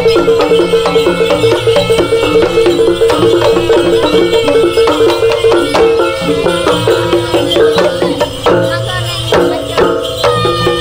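Traditional folk music played by an ensemble: several pitched melody instruments over a steady, evenly repeating percussion beat.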